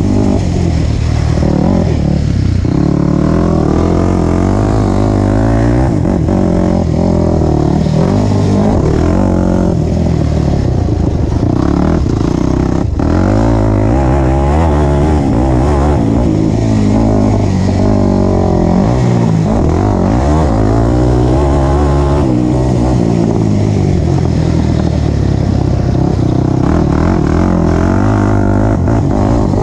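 ATV engine, ridden hard on a dirt track, revving up and down over and over as the rider accelerates, shifts and backs off, with no break in its running.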